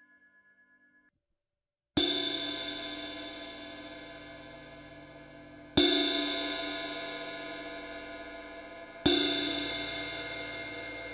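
Ride cymbal struck three times, a few seconds apart, each hit ringing bright and slowly dying away.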